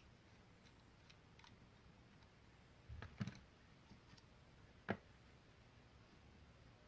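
Near silence broken by a few faint clicks and taps, a small cluster about three seconds in and a single sharper click near five seconds: small tools and metal parts handled while a motorcycle carburetor is being taken apart.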